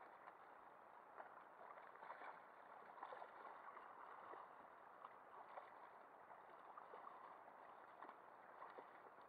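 Faint water sloshing and lapping against a kayak hull, with small crackling splashes as a hooked smoothhound thrashes at the surface beside the boat.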